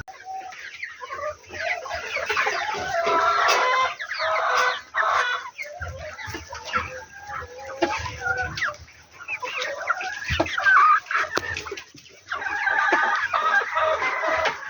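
A flock of chickens clucking and calling, many short overlapping calls.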